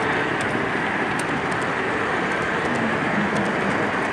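Model freight train rolling past on a layout track: a steady rushing noise of wheels on rails, with a few light clicks.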